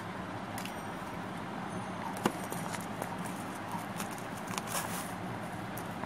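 Scattered light clicks and rustles of plastic pens being pushed into the elastic loops of a nylon pencil bag, the sharpest click about two seconds in, over a steady low background hum.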